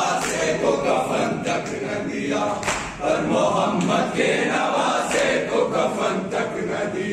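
A crowd of men chanting an Urdu noha (Shia mourning lament) together, led over a microphone, with the slaps of hands beating on chests (matam) cutting through the chanting.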